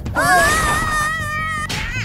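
A cartoon character's high-pitched, drawn-out yell that rises at the start and then holds, over background music.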